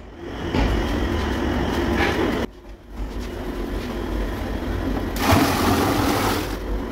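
Steady rumble and hum of a paint-mixing machine running in a mixing vat. From about five seconds in, a rushing splash as thin white liquid pours into the vat around the spinning mixer shaft.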